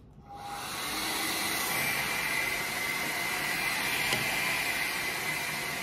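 Hair dryer switched on just after the start and running steadily: a loud rush of blowing air with a thin high motor whine.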